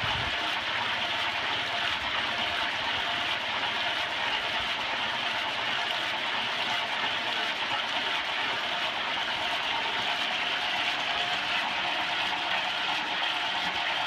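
Coffee washing machine running steadily: an electric motor and gearbox turn a paddle arm through fermented coffee beans in water, churning them to scrub the mucilage off the seeds.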